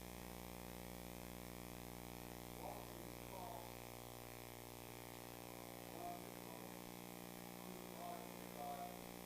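Quiet electrical hum and buzz from the recording or sound system, with a few faint, brief sounds scattered through it.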